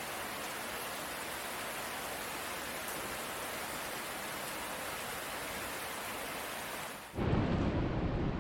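Steady rain falling, an even hiss. About seven seconds in it cuts abruptly to a louder, deeper rumbling noise.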